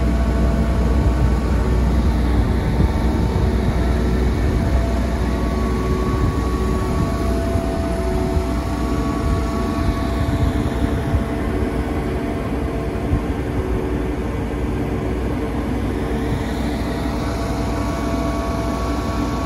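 MAN 35.480 concrete mixer truck's six-cylinder diesel engine running steadily at standstill: a low drone with several steady whining tones over it.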